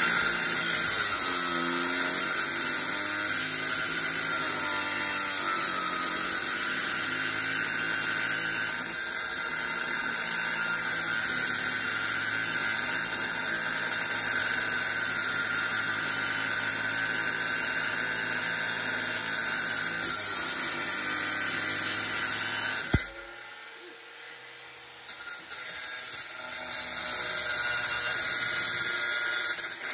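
Electric grinder running at high speed, cutting into the steel shell of a small compressor. It stops abruptly about 23 seconds in and starts cutting again about two seconds later.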